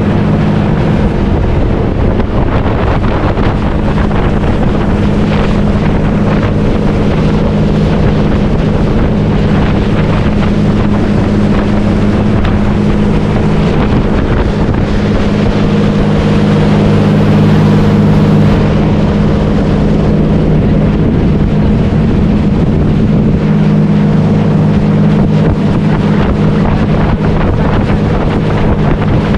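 Motorboat engine running steadily while the boat is under way, with wind noise on the microphone.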